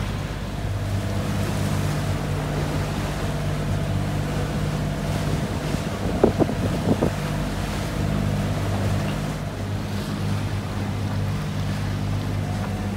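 A sailing catamaran's engine running at a steady hum under way, with wind and waves rushing past. A few quick knocks come about six seconds in.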